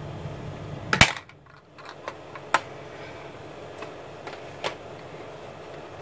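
Sharp plastic clicks and taps from a cake-type watercolour palette's plastic case being handled. The loudest click comes about a second in, a second clear click follows about a second and a half later, and a few lighter ticks come after.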